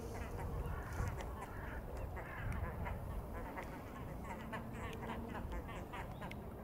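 Waterbirds calling on a lake: many short, quick calls overlapping, with a couple of longer held notes, over a steady low rumble.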